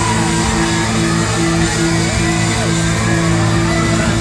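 Live rock band playing loud, led by electric guitar picking a riff of evenly repeated notes over bass and drums, with no singing.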